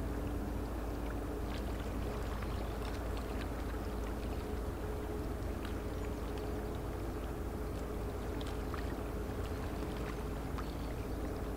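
Diesel engine of an inland river cargo ship running steadily, a low, even hum with several steady tones and faint scattered clicks above it.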